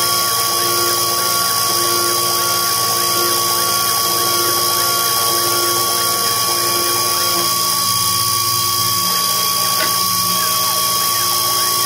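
A Sherline 2010 CNC milling machine's spindle runs at 10,000 rpm, with a small carbide tool cutting into 7075 aluminium alloy. It makes a steady, high-pitched whine over a hiss.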